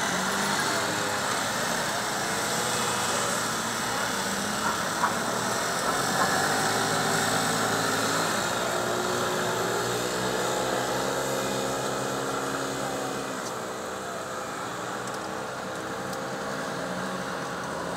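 Street traffic noise led by small motor scooter engines running and passing, their pitch sliding slowly up and down, with a few sharp clicks about five to six seconds in.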